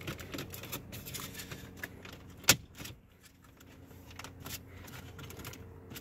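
Plastic car dashboard trim pieces being handled and fitted back into place: small clicks and rattles, with one sharp snap about two and a half seconds in, over a faint steady hum.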